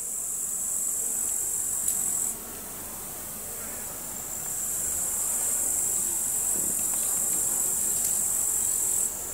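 Insects stridulating: a steady high-pitched chirring that stops a little over two seconds in and comes back about two seconds later.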